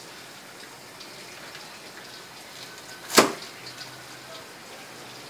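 Fried bread pakodas being set down and arranged on a wooden serving board: a faint steady hiss with light scattered ticks, and one sharp knock about three seconds in.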